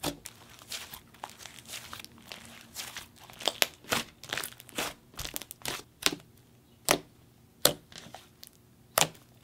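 Thick, fluffy clay slime squished, folded and poked by hand, giving irregular sharp bubble pops and crackles, a few of them much louder than the rest.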